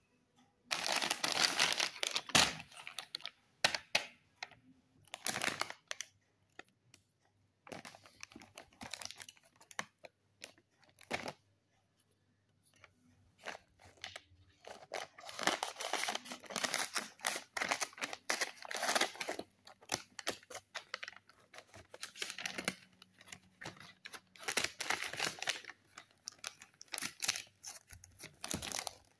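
Handmade paper packet sealed with tape being torn open and crinkled by hand, in irregular bursts of tearing and rustling with short pauses and a few sharp crackles.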